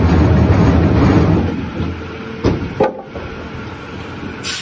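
Wood-peeling workshop machinery running loudly, then dying down after about a second and a half. Two sharp wooden knocks follow, about half a second apart, like peeled log cores being knocked against each other.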